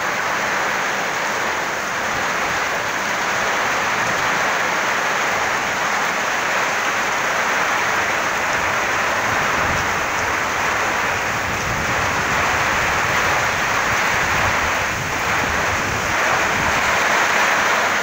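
Heavy rain pouring steadily onto vegetation and open ground in a windy storm, a dense even hiss, with a few gusts of wind.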